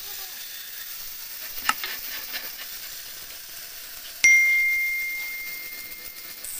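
A single bright bell ding, starting suddenly about four seconds in and ringing on as it slowly fades: the sound effect of an on-screen subscribe-button animation. A short click comes a couple of seconds before it, over a faint steady hiss.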